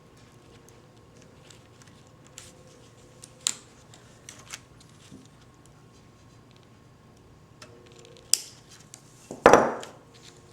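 Small metal keyboard parts being handled and fitted: a brace being worked back into place over the key contact board, with a few sharp clicks and, near the end, one louder scraping clatter lasting about half a second.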